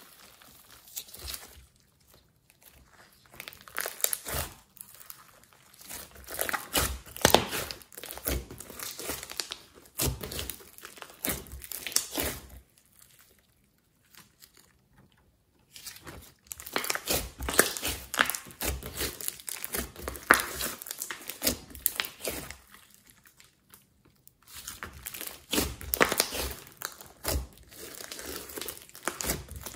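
Hands squishing, pressing and stretching a large lump of mixed glitter slime, making dense clicks in bursts of a few seconds, broken by three short quiet pauses.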